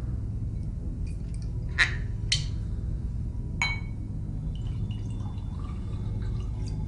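A glass tumbler clinks three times, the last with a short ring, then liquor is poured from a bottle into it with a faint trickle.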